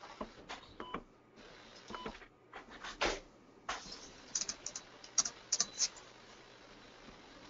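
Computer keyboard keys clicking in scattered, irregular taps, with a quick run of keystrokes about four to six seconds in.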